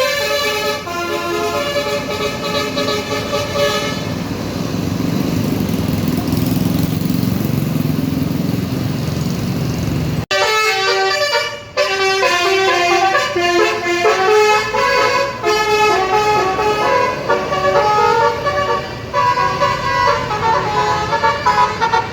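A bus's 'telolet basuri' musical horn, a bank of horn trumpets, playing a loud tune note by note. It gives way to low bus engine noise for several seconds, then after an abrupt cut about ten seconds in the horn tune resumes.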